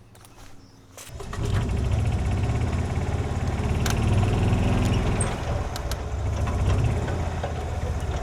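Golf cart engine starting about a second in, then running steadily with a low rumble.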